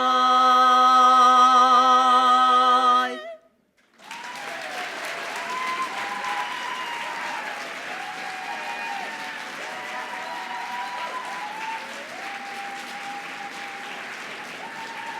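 A women's barbershop quartet holds its final chord with vibrato for about three seconds and cuts off together. After a brief silence, the audience applauds steadily, with cheering voices over the clapping.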